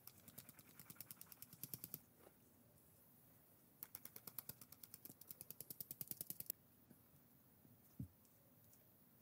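A stainless steel mesh sieve sifting flour, rattling in quick even ticks of about ten a second, in two runs with a pause of about two seconds between them. Near the end, one soft thump as a silicone spatula goes into the flour in the glass bowl.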